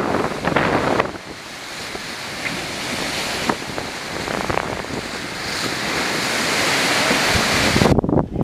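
Wind rushing across the microphone, a steady hiss that slowly grows louder, with a few knocks in the first second; it cuts off abruptly near the end.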